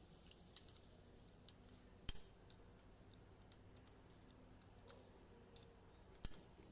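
Faint, scattered metallic clicks and ticks of hand tools and small parts being handled on a diesel engine's cylinder head during reassembly. Two louder sharp clicks come about two seconds in and near the end.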